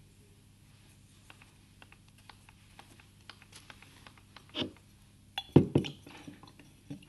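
Paintbrush dabbing and scrubbing paint onto paper, heard as faint scratchy ticks. About five and a half seconds in come a few loud knocks and clatter from handling close to the microphone.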